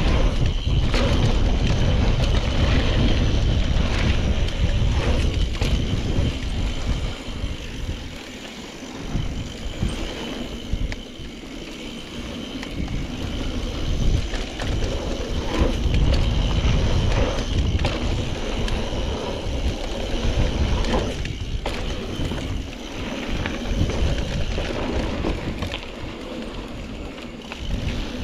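Mountain bike descending a dirt trail: a steady low rush of wind and tyre noise with rattles and knocks from the bike over bumps. It eases off for a few seconds about a third of the way in and again near the end.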